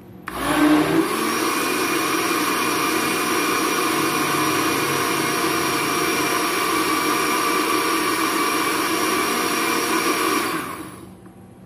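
Electric countertop blender grinding soaked rice with its soaking water into smooth galapong batter. The motor starts with a louder churn for about a second, runs steadily, then is switched off and winds down near the end.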